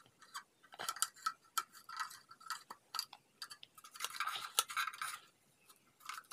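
Fingers picking at and prying the inside of a small plastic battery case: irregular light clicks and scratchy crackles of plastic, with a denser stretch of scraping about four seconds in.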